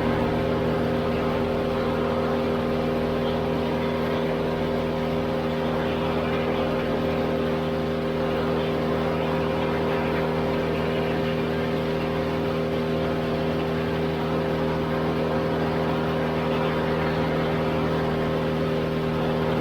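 An engine running at a constant speed, a steady even drone that holds one pitch throughout.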